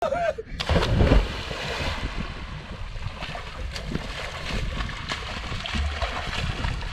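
A person jumping into the sea: a brief shout as he leaves the boat, then a loud splash about a second in as he hits the water. After that, steady wind noise on the microphone with smaller splashes of him swimming.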